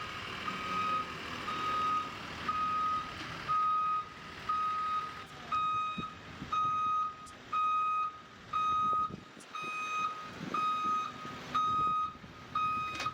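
Vehicle backup alarm beeping steadily, about one half-second beep each second, from a work vehicle reversing.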